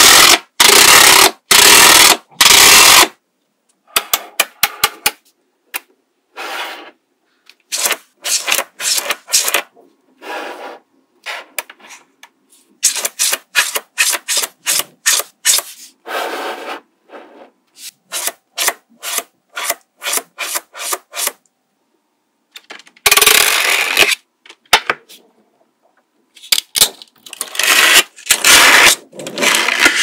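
Small magnetic balls clicking, rattling and rasping as hands handle them and snap them into rows and sheets. Near the start a plastic strip is run along rows of balls in about three quick, loud rasping strokes, and there are longer stretches of rasping later on.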